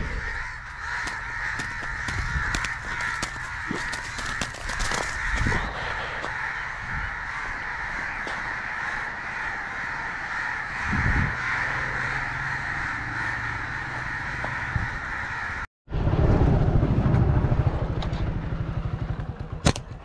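Crows cawing continuously, many calls overlapping. About three-quarters of the way through, the sound cuts off abruptly and a louder low rumble takes over.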